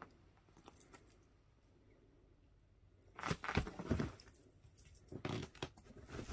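Cats scuffling and pouncing during play, giving short bursts of rustling and knocks: a cluster about three seconds in and another around five seconds.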